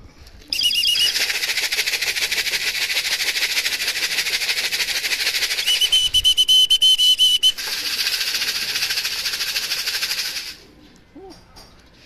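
Fast, continuous hand-shaken rattling for about ten seconds, with a short whistle near the start and a longer whistle about six seconds in: a racing pigeon being called down from the loft roof.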